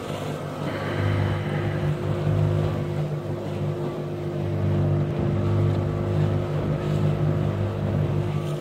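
A small motorboat's engine running steadily at cruising speed, with a continuous drone.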